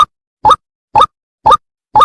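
White-breasted waterhen (ruak-ruak) calls used as a bird lure: one short call repeated evenly about twice a second, with dead silence between calls.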